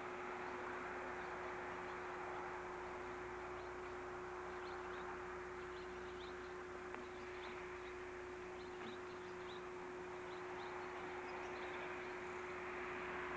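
A 165 series electric multiple unit train fading away down the line, a faint steady rumble and hiss over a steady hum. Small birds chirp in short calls from about four to eleven seconds in.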